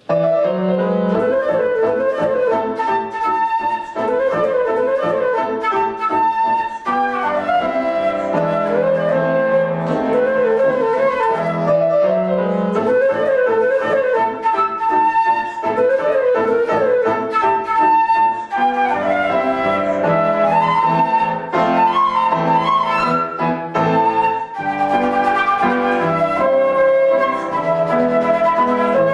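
Instrumental music: a flute plays a melody with quick trills and wavering held notes over a sustained lower accompaniment. It starts suddenly.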